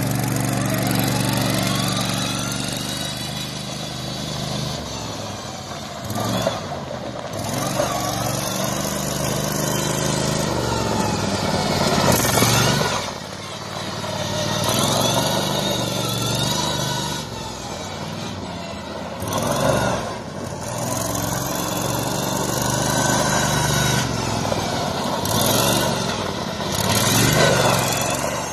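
Modified 1980 Murray GT16 lawn tractor's engine being revved up and down as it is driven hard, with louder surges several times. Its tyres are scattering gravel.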